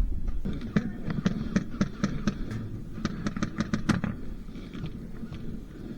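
Airsoft gunfire: a rapid string of sharp cracking shots, about fifteen in three seconds, coming quicker towards the end, then stopping about four seconds in.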